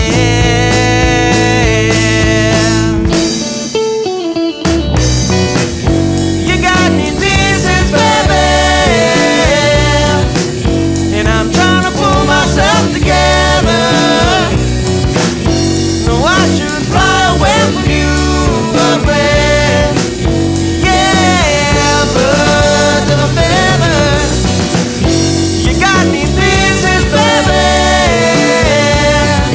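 A song with guitar, bass and drum kit, with a singing voice or lead melody over it; the band drops out briefly about four seconds in, then comes back in.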